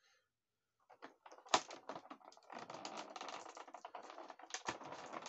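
Clear plastic packaging crinkling and crackling as a hand digs through it in a cardboard box, starting about a second in, with a couple of sharper clicks of plastic parts, about a second and a half in and again near the end.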